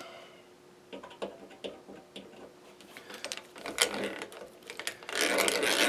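Light metal clicks and taps, then about five seconds in a hand-cranked drill starts turning with a steady gear rattle as it drills out a rivet holding a dryer drum glide.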